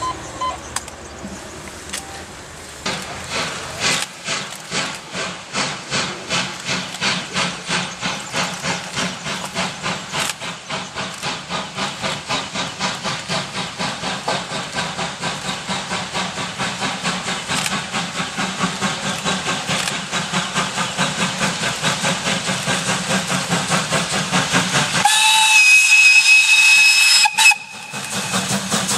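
Ty2 two-cylinder steam locomotive starting a train and accelerating, its exhaust beats getting quicker and closer together. About 25 s in it gives one long whistle blast of about two and a half seconds, which cuts off suddenly while the chuffing continues.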